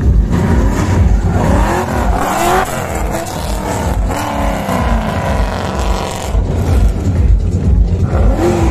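Vehicle engine revving hard, its pitch climbing and dropping several times, with a regular low thump about twice a second underneath.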